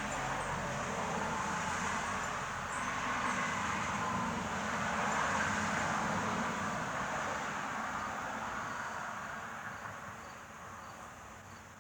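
A vehicle passing: a broad rushing noise with a low rumble that builds to a peak about halfway through, then fades away.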